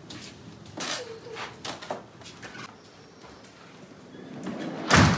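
Soft knocks and rustles from a cardboard toy box being picked up off a tiled porch and carried indoors, then a short, loud thump and rush just before the end.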